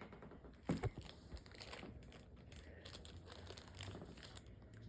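Faint crinkling and rustling of blind-box packaging being handled, with a few small clicks.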